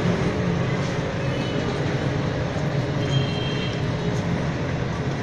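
Steady low mechanical rumble with a hum, unbroken throughout.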